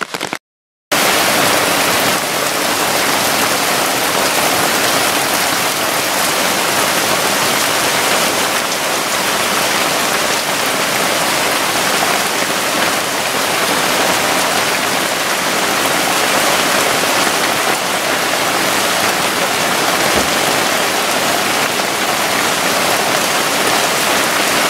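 Heavy rain pouring down in a steady, dense hiss, a hard downpour; it starts about a second in.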